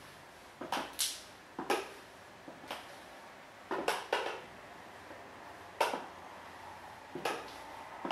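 Stiletto heels of pink high-heeled pumps clicking on a wood floor as a woman walks slowly. The sharp clicks come irregularly, some in quick pairs, with pauses between steps.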